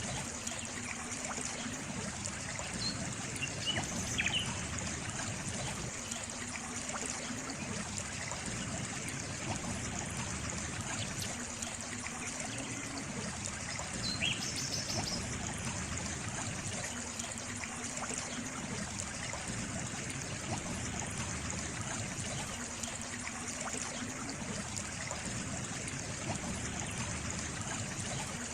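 Water trickling steadily, like a small stream, with a few brief faint high chirps near the start and about halfway through.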